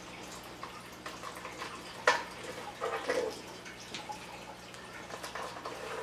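Small screwdriver and fingers working the screws out of the back of a metal NVR case: light clicks and scrapes, one sharp metal click about two seconds in and a short rattle about a second later.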